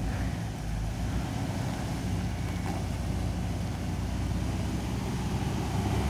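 Jeep Wrangler Rubicon's 4.0-litre straight-six engine running steadily at low revs as the Jeep crawls slowly over slickrock.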